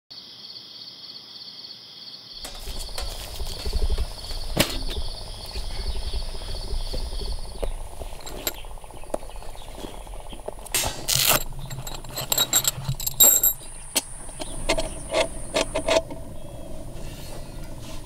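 Insects trilling in a steady, fast-pulsing high chirr that fades out after about seven seconds. From about two seconds in, a low rumble sets in, with scattered sharp clicks and knocks that cluster in the second half.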